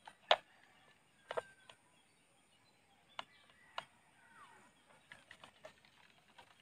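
Scattered light clicks and crinkles of a plastic bottle being handled as fishing line is wound onto it, with a faint falling chirp about four seconds in.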